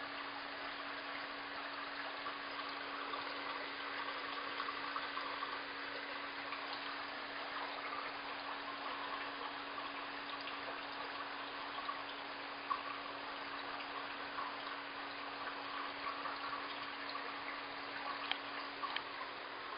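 Steady trickling and bubbling of water circulating in a large aquarium, over a steady low hum, with a few faint clicks in the second half.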